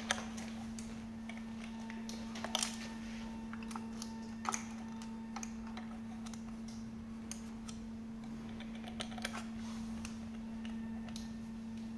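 Sparse light clicks and taps of screws and a cordless drill being handled against a hoverboard's plastic frame, a few sharper ones near the start and a few seconds in, over a steady low hum.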